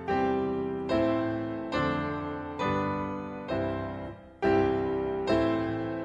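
Background music: piano chords struck about once a second, each ringing out and fading before the next.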